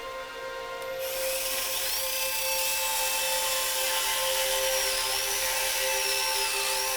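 A high-speed power tool starts about a second in and runs steadily with a high whine that wobbles slightly in pitch, over background music.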